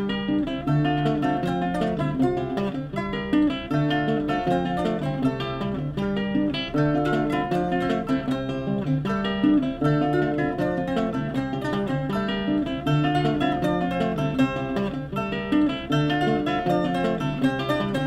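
Guitar music with a quick run of picked and strummed notes.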